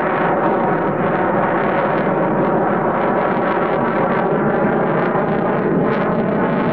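Mitsubishi F-2 fighter's F110 turbofan running at high power in flight: a loud, steady jet roar with a faint buzzing tone through it.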